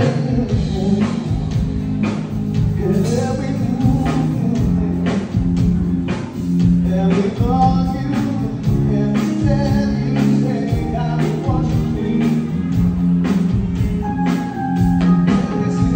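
Live band playing through a PA: a singer over electric guitars, keyboard and drums with a steady drumbeat.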